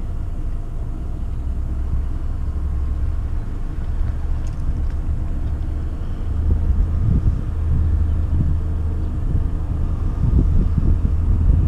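Sailboat's auxiliary engine running steadily at low speed, a low drone. Wind buffets the microphone, gustier from about six seconds in.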